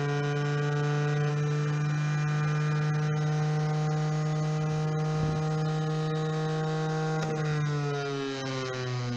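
Electric motor and shaft of a shaft-balancing lab rig running at about 6000 RPM with a steady hum of several tones, the shaft still balanced with no unbalance screw fitted. Near the end the pitch slides down as the motor is slowed.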